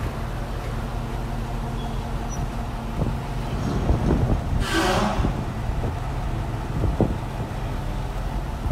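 Toyota Land Cruiser GXR's V6 petrol engine running as the SUV creeps forward at low speed, a steady low rumble. A short hiss lasts about half a second around five seconds in.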